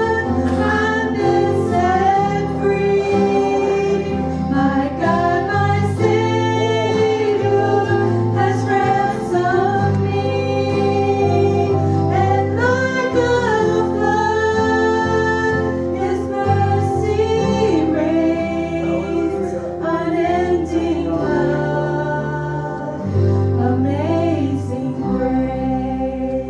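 Gospel song sung by voices with instrumental accompaniment, steady sustained notes under the singing.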